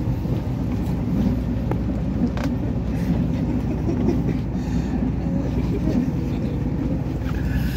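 Passenger train running: the steady low rumble of the wheels and carriage, heard inside a sleeper car, with a few brief clicks about two to three seconds in.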